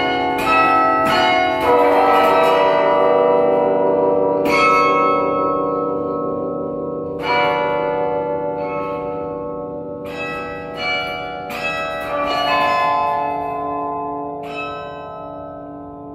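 The 54-bell Yale Memorial Carillon, played by hand from its baton keyboard: single bells and small chords struck slowly, a second to a few seconds apart, each left to ring and die away. The whole grows steadily quieter.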